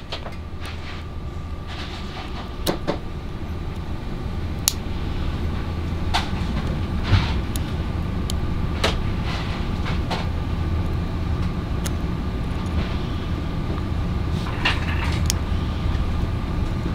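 Scattered light clicks and ticks of an X-Acto blade prying at the plastic housing of an Anderson Power Products two-pin connector, working the tab that holds the contact in, over a steady low hum.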